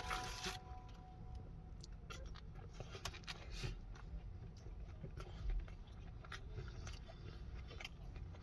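A person biting into a smash burger and chewing it close to the microphone: a short crunchy burst at the bite, then soft wet chewing and mouth smacks.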